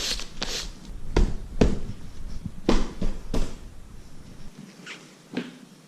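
A series of short, sharp rubbing or scraping strokes from hand work on the foam padding of a motorcycle seat, roughly one or two a second. They break off about four and a half seconds in, leaving only a couple of fainter strokes.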